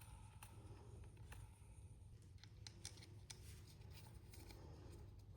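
Near silence: a low steady hum with scattered faint clicks and taps.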